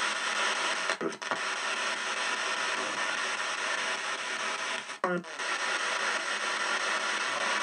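Ghost box (spirit box) radio sweeping through stations: a steady hiss of static, broken by brief cut-outs about a second in and about five seconds in. A short voice-like fragment comes through near the second cut-out, which the session's caption renders as 'Burn him'.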